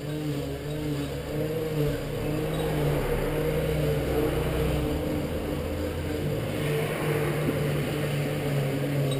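A steady low mechanical hum from a running motor or engine, holding a few fixed pitches over a low rumble.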